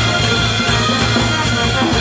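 Peruvian brass band playing live: drum kit and bass drum keep a steady beat under sustained chords from trumpets, trombones, saxophones and sousaphones.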